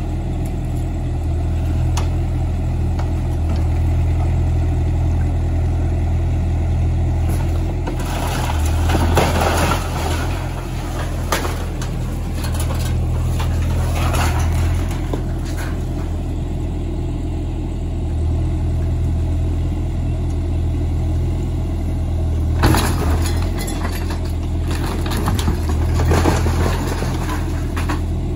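Demolition machine's engine running steadily under load, with several spells of crashing and cracking as it tears into the house's wood and debris.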